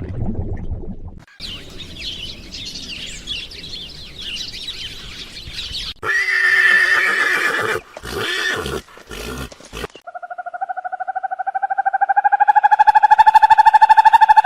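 A run of different animal calls: a loud, quavering, whinny-like call about six seconds in, then a long, rapidly pulsing trill that rises slightly in pitch.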